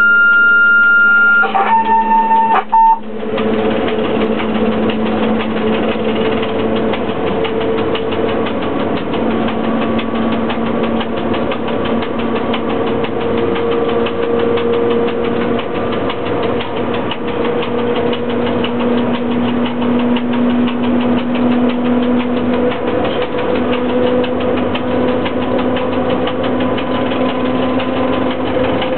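Cab noise of a ChS4T electric locomotive running with a passenger train: a steady rattle and dense fine ticking, with a hum and whine that rise slowly in pitch as the train gathers speed. In the first seconds a loud high beep sounds, then a shorter, lower one.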